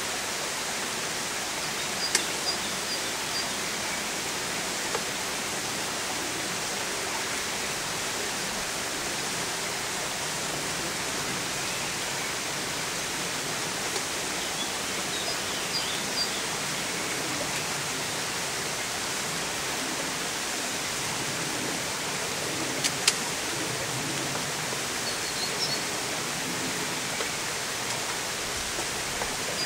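A steady, even hiss-like outdoor noise, with a sharp click about two seconds in and another near the end, and a few faint, short, high chirps.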